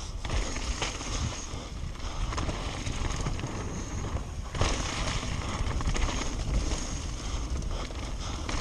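Mountain bike descending a dirt and gravel trail, heard from a camera mounted on the rider: tyres rumbling and crunching over the ground, the bike rattling and clicking over bumps, with wind on the microphone. It dips briefly about halfway through, then picks up again.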